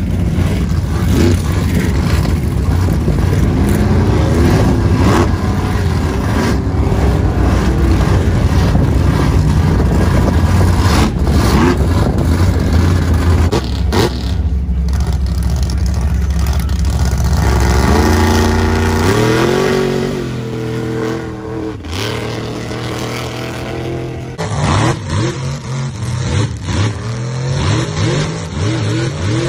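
Mega truck engines revving hard, the pitch sweeping up and down in several runs. About three-quarters of the way through, a different mega truck revs repeatedly while spinning its tires in a smoky burnout.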